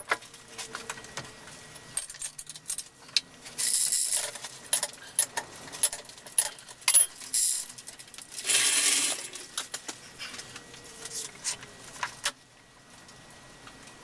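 Steel hoist chains clinking and jangling, with two longer rattles about four and nine seconds in; the clatter stops near the end.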